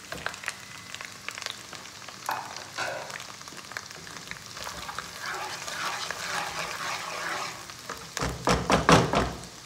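Ground and whole spices sizzling as they hit hot desi ghee in a wok, frying a tadka, while a wooden spatula stirs them around; a burst of louder scrapes and knocks of the spatula against the pan comes near the end.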